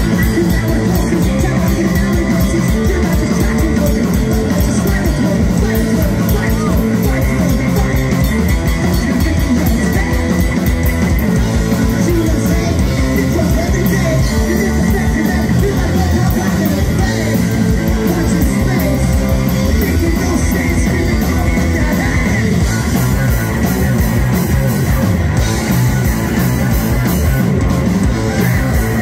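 Live rock band playing loud through a stage PA: electric guitar, drum kit and a singer at the microphone.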